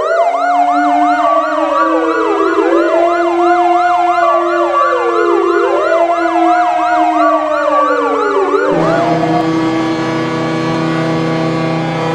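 Ice hockey goal horn sounding as a siren: a wail rising and falling about every two seconds, layered with a fast yelp and a steady low tone. About nine seconds in it switches to steady held tones.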